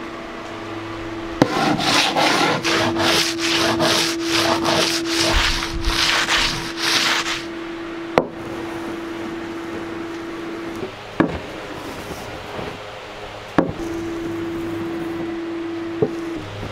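Wood being rubbed by hand in quick back-and-forth strokes, about three a second, for some six seconds, then stopping. A few sharp knocks follow, over a steady hum that comes and goes.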